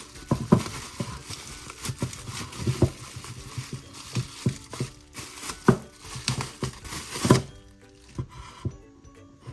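Packaging crinkling with frequent small clicks and taps of miniature kitchen pieces being handled, over background music. The sharpest taps come about half a second in, just before six seconds and near the end.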